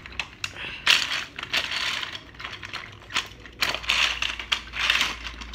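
Battery-powered TrackMaster Thomas toy engine running along plastic track, its wheels and gearbox making an uneven clicking rattle.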